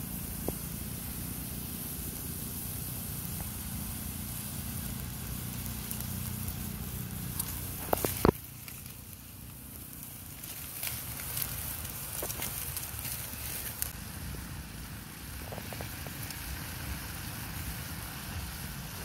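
Fish-sauce and oil mixture sizzling and bubbling in a metal wok over a wood fire, with the fire crackling. A cluster of sharp clicks about eight seconds in.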